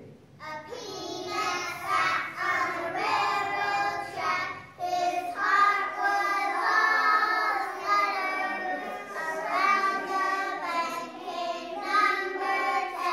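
A group of young children singing a song together, starting about half a second in.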